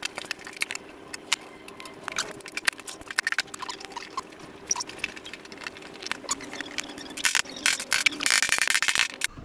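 Small metallic clicks and taps of pliers working cable staples into a board, ending in a quick run of taps. A faint steady hum sits underneath for most of it.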